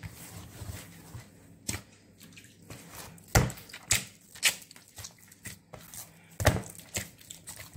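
Hand kneading a soft, slack yeast dough in a wooden bowl: irregular wet slaps and squelches as the dough is lifted and slapped down. The loudest smacks come about three and a half and six and a half seconds in.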